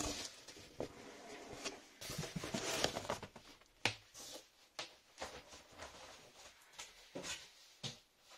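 Cardboard box and packing material rustling and knocking as a boxed video recorder is lifted out, with scattered sharp clicks and knocks; the sharpest knock comes about four seconds in.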